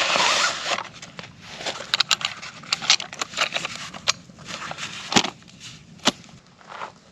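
Camping gear being handled: rustling in the first second, then a run of short, sharp clicks, snaps and scrapes, the loudest about five seconds in.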